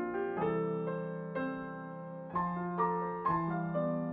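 Background piano music, notes struck one after another and left to ring.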